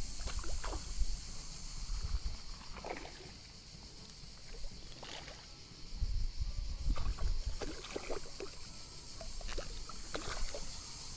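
Insects buzzing steadily and high-pitched, with scattered knocks and rustles from handling a fly rod and reel, and a low rumble of wind on the microphone about six to eight seconds in.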